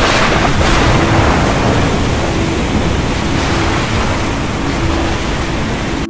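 Stormy sea: a loud, steady rush of heavy waves and wind, with a few faint held tones underneath, cutting off suddenly at the end.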